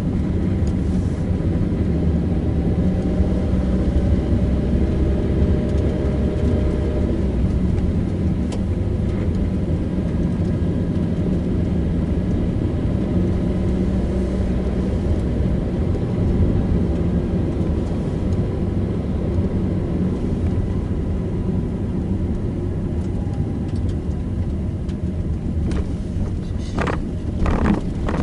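Car driving along a road: steady engine and tyre rumble with the engine note rising and falling gently. A few sharp knocks near the end.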